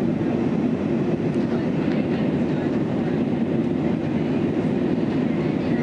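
Steady rumble inside the cabin of an Airbus jet airliner during takeoff: engine and airflow noise that holds one level throughout.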